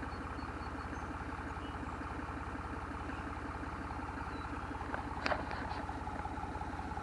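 Tractor engine running at a steady speed with an even, fast low throb. A single sharp knock comes about five seconds in.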